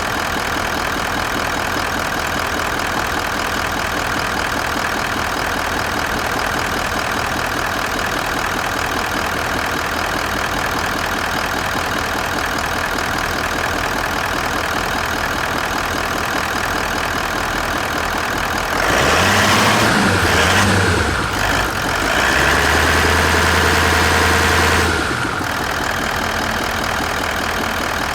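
Toyota Land Cruiser 200's 4.5-litre V8 D-4D diesel idling steadily. About two-thirds of the way through it is revved twice: a short blip, then a rev held for about three seconds before it drops back to idle.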